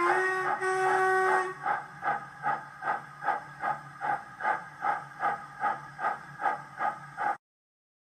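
Sound-fitted Hornby LMS Black Five model steam locomotive running on a rolling road. Its loudspeaker plays steady exhaust chuffs about twice a second, with a chime whistle held for about a second and a half at the start. The sound cuts off abruptly near the end.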